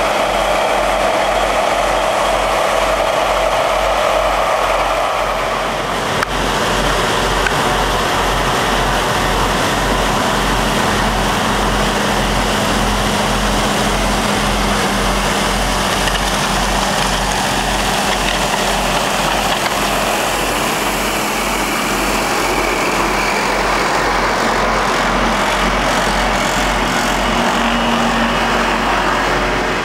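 Heavy diesel road machinery running steadily: a John Deere 772D motor grader working close by as it spreads gravel, with a Dynapac vibratory roller's engine heard near the end.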